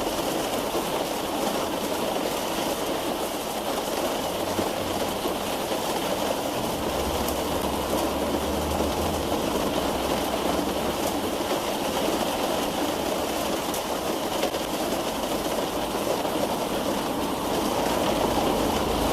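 Steady rain falling on a car's roof, heard from inside the car: a dense, even patter with a few sharper drop ticks.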